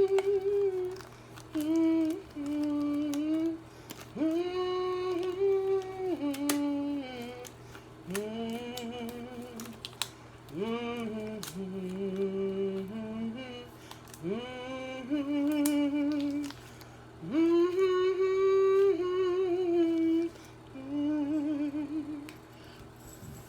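A woman humming a melody without words: long held notes with vibrato, in short phrases with brief pauses between them.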